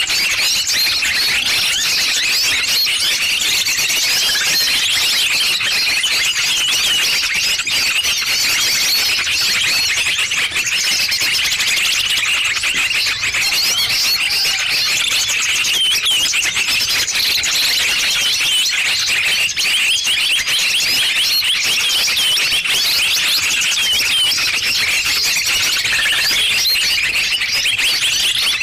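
A dense, unbroken chorus of many small birds chirping and twittering all at once, high-pitched and overlapping: a bird-trapping lure recording meant to draw small birds in.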